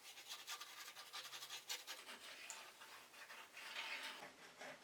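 Faint, scratchy strokes of a line being drawn on a wooden rod, with a longer stroke about three and a half seconds in.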